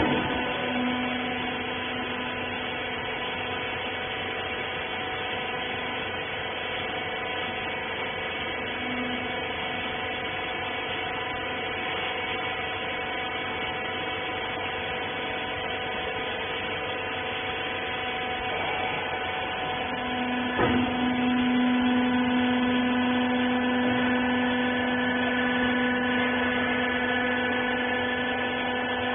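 Hydraulic rag baler's pump motor running with a steady hum. About 20 seconds in there is a knock, after which the hum grows louder and fuller.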